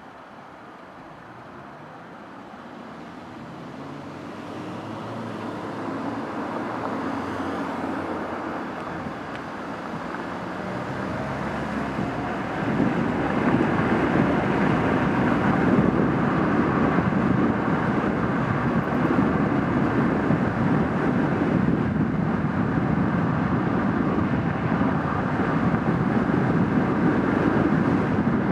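A car pulling away from a stop. Its engine climbs in pitch as it speeds up, then an even rush of tyre and road noise takes over and grows louder about a dozen seconds in.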